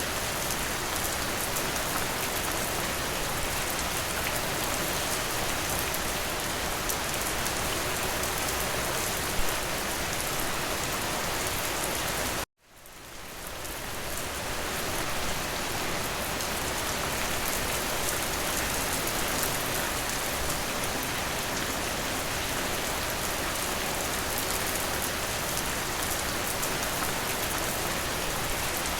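Steady rain falling, an even dense hiss of drops. About twelve seconds in it cuts out abruptly to silence for a moment, then fades back up over a couple of seconds.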